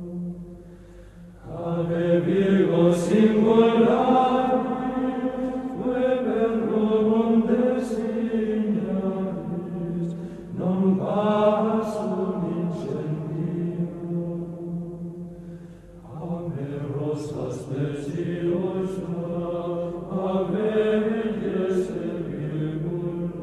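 Slow sung chant used as background music: voices holding long notes in phrases of a few seconds, over a steady low held tone.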